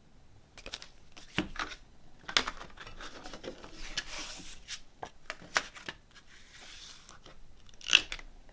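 A CD and its packaging being handled: paper and plastic rustling, broken by a string of sharp clicks and knocks, the loudest about eight seconds in.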